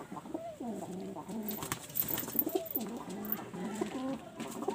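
Domestic pigeons cooing, several calls overlapping one after another, each with a swooping rise and fall in pitch.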